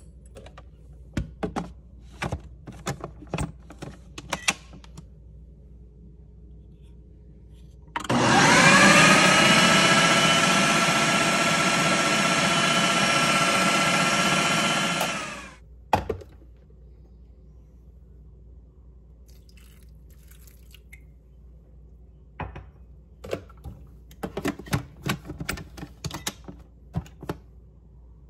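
Ninja Professional Kitchen System motor base driving the dough blade through flour, oil and salt in the processor bowl. About eight seconds in it spins up with a rising whine, runs steadily for about seven seconds, then stops. Sharp clicks and knocks of the plastic bowl and lid being handled come before the run and again near the end.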